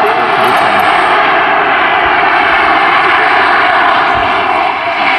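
Radio-controlled DV8R model jet flying past with its turbine engine giving a steady, loud rush of jet noise and a faint high whine, easing slightly near the end.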